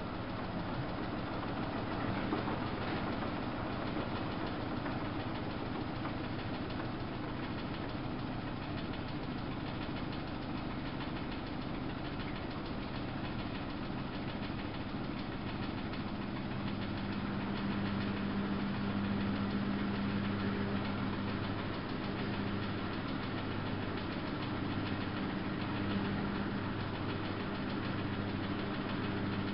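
Samsung WF71284 washing machine running: a steady motor hum with a low tone that grows stronger a little past the middle, and a slow pulsing underneath.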